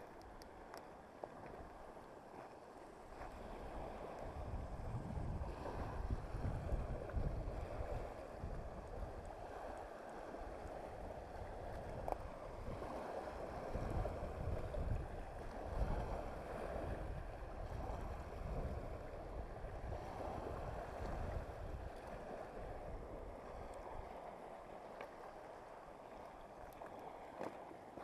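Wind gusting on the microphone with a low rumble, over small waves lapping on a stony shore. The gusts build a few seconds in and ease near the end.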